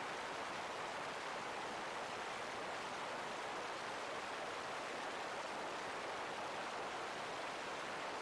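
Steady rush of airflow over a camera mounted under the wing of a Diamond DA-20 light aircraft in flight: an even hiss with no clear engine note.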